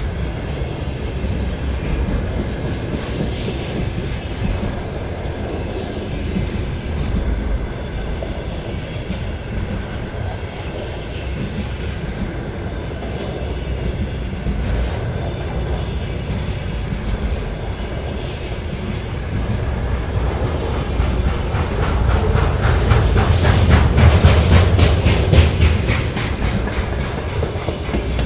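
Container freight train wagons rolling past with rail clickety-clack. About two-thirds of the way through, the wagons grow louder and take on the strange, fast rhythmic pulsing noted for these cars.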